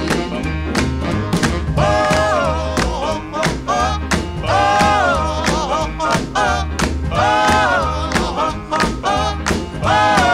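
Background music with a steady drum beat and a bouncing bass line under a melodic lead.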